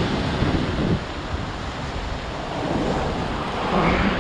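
Sea waves breaking and washing against the rocks below, with wind buffeting the microphone. The surf is louder in the first second, eases, then swells again near the end.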